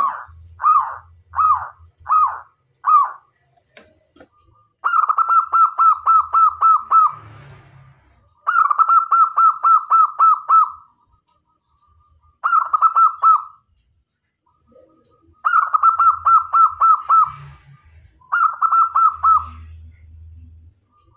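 Zebra dove (perkutut) cooing: a few separate notes, then five runs of rapid staccato coos, about five a second on a steady pitch, each run lasting one to two seconds with short pauses between.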